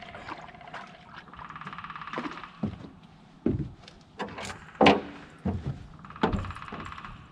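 Hollow knocks and thumps on an aluminum boat's deck and hull, with the loudest about five seconds in, as gear is handled and moved aboard. Two stretches of fast, even clicking come early on and again near the end.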